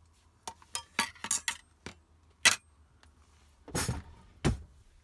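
Crockery and cutlery clinking on a table: a run of sharp clicks and clinks, then two heavier knocks near the end as the dishes are set down.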